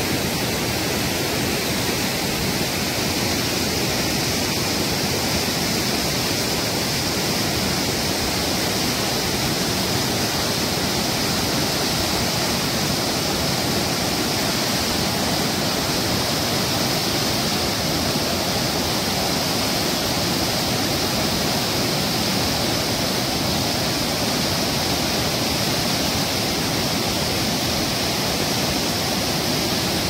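Loud, steady rush of white water pouring over rock slabs in a river cascade.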